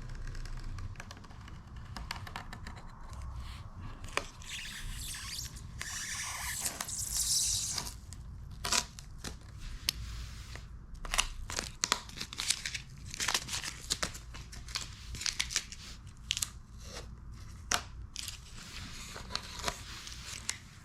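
Masking tape being peeled off a Plastidip-coated plastic wheel cover, tearing and crackling as it pulls away from the rubbery coating. There is a longer tearing stretch, then a run of sharp snaps and crinkles.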